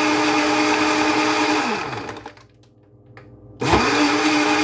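Black & Decker FusionBlade personal blender crushing ice cubes in water. The motor runs steadily, winds down and stops about two seconds in, then starts up again about a second and a half later and keeps running.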